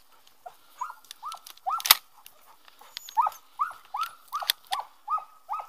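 French pointer (Braque français, Pyrenees type) whining in short, rising-and-falling yelps, about two or three a second, with a brief pause in the middle. A sharp click about two seconds in is the loudest single sound.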